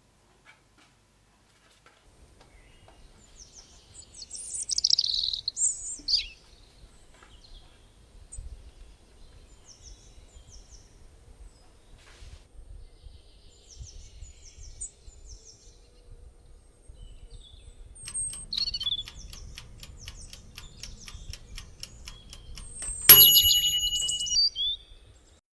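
Birds chirping on and off, loudest about five seconds in, over a faint low rumble. Near the end comes a single sharp click that rings briefly, the loudest sound.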